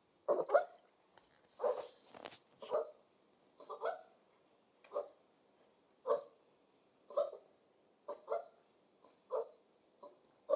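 Central Asian Shepherd (Alabai) puppy giving short barks, about one a second.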